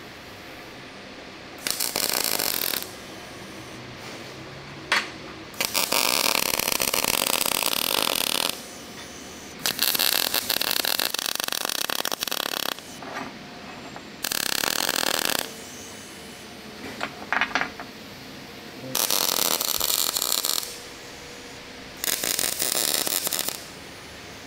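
A metalworking tool run in six short bursts of one to three seconds each: a harsh hiss with no steady pitch, with quiet gaps between the bursts.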